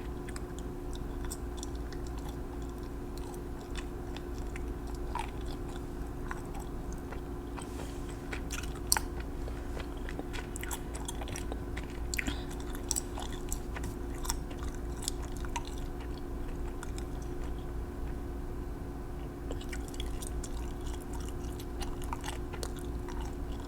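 Scattered small clicks, taps and crackles close to the microphone, one sharper click about nine seconds in, over a steady low electrical hum.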